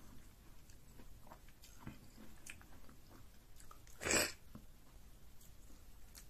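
Close-miked eating of pounded yam fufu with soup by hand: soft, wet mouth clicks and smacks, then about four seconds in one loud, wet mouth sound lasting about half a second as a soup-coated ball of fufu goes into the mouth.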